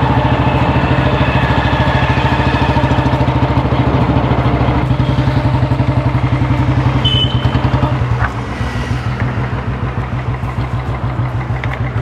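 Motorcycle engine running close by with a fast, even pulse; it eases off and gets quieter about eight seconds in.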